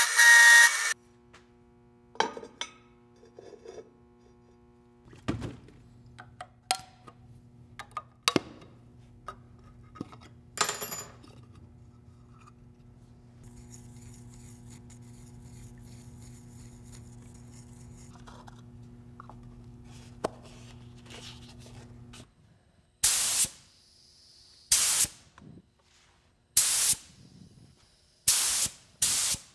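A milling machine's end mill cutting a steel tube for about a second. Then scattered clinks and taps of paint being mixed and stirred in a plastic cup, over a steady low hum. Near the end come five short hissing bursts of yellow paint being sprayed onto a masked steel tube.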